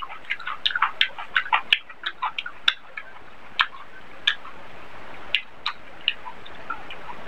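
Close-miked chewing with quick wet mouth clicks and smacks, dense for the first few seconds and then sparser.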